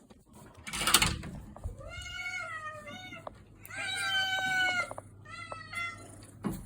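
Domestic cat meowing repeatedly, a run of about five meows with the longest and loudest about halfway through. A brief rustling noise comes about a second in.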